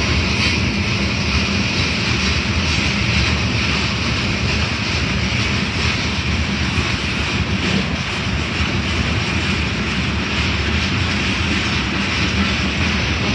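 Freight train rolling past close by: the steel wheels of loaded covered hopper cars running on the rails, a loud, steady rumble and hiss.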